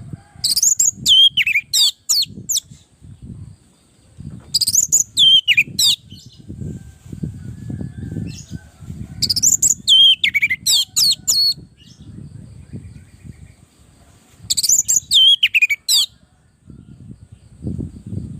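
Orange-headed thrush singing: four loud phrases a few seconds apart, each a quick run of sharp notes and high whistles falling in pitch. A low background rumble fills the gaps between phrases.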